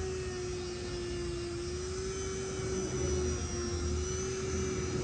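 Handheld rotary tool running a felt polishing wheel against the steel frame of a TT-30 pistol: a steady high motor whine that sags slightly in pitch about a second in and then comes back up.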